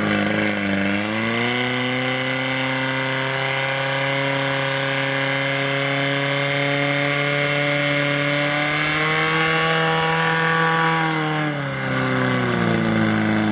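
Portable fire pump's petrol engine running at high revs while pumping water into the attack hoses, with a steady hiss over it. Its pitch climbs in the first second or so, holds, lifts slightly, then falls away about eleven seconds in as the hiss stops, and revs up again near the end.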